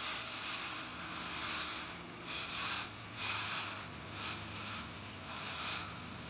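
Wood being turned on a lathe: a cutting tool shearing the spinning wood in repeated hissing passes, each lasting about half a second to a second or more, with short breaks between them.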